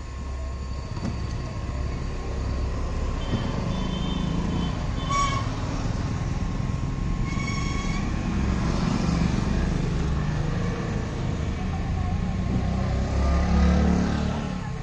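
Steady low rumble of passing vehicles, with short horn toots about five seconds in and again about seven and a half seconds in.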